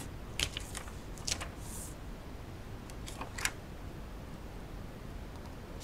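Faint rustles and light taps of patterned paper being set in place and pressed onto glued cardstock, a few brief ones in the first three and a half seconds, over a low room hum.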